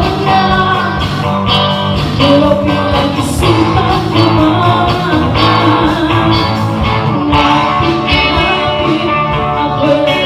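Live band playing a cover song through a PA system: guitar with singing over a steady beat.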